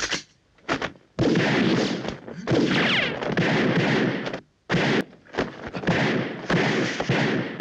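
Film gunfight sound effects: pistol shots, two single shots first, then dense rapid firing with bullet impacts from about a second in, broken by a few brief pauses.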